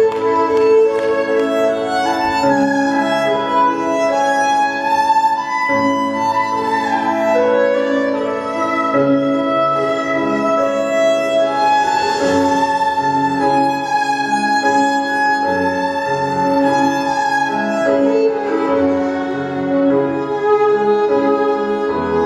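Dance music with a bowed string melody, violin-like, over sustained lower notes, played steadily and loudly.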